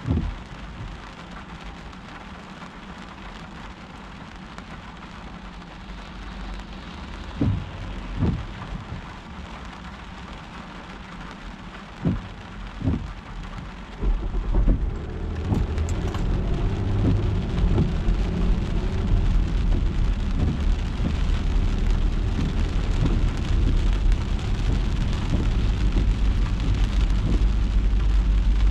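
Rain and wet-road noise from a car driving in the rain: a steady hiss, two pairs of short low thumps in the first half, then a louder low rumble through the second half.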